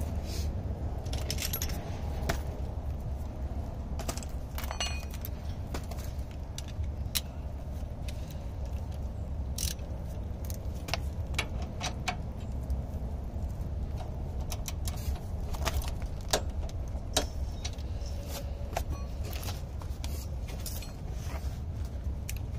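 Metal hand tools clinking and rattling as they are handled: irregular sharp clinks, a few with a short metallic ring, over a steady low rumble.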